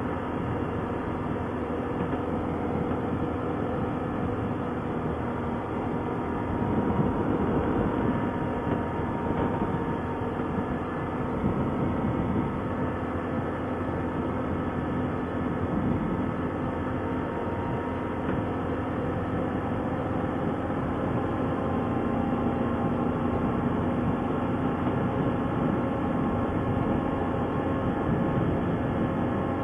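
ATV engine running at a near-steady pitch while riding, over a rough low rumble of noise.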